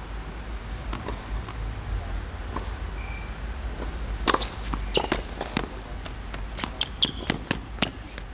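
Tennis point on a hard court: a serve is struck about four seconds in, then racket hits, ball bounces and quick footsteps follow in a rapid run of sharp clicks. A low steady rumble lies underneath.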